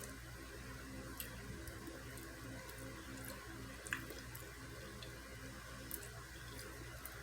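Faint eating sounds: a few scattered soft clicks of someone chewing food, over a low steady hum.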